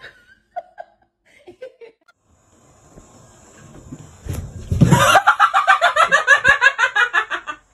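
A person laughing hard in a rapid run of high pulses for the last few seconds, after a dull thump; before it a faint steady hiss builds up.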